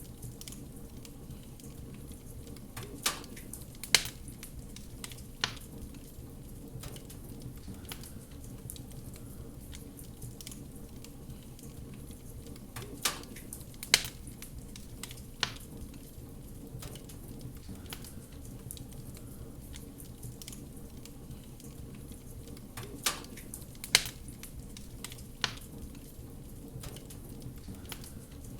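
Wood fire in a fireplace crackling, with a steady low rumble under it and sharp pops that come in groups of three about every ten seconds.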